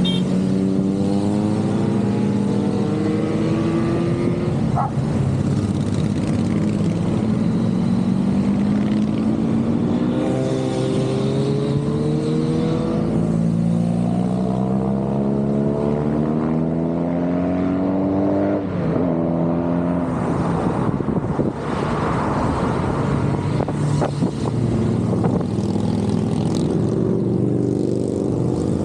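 A continuous stream of motorcycles riding past, one engine after another accelerating with its note rising, overlapping into unbroken engine noise.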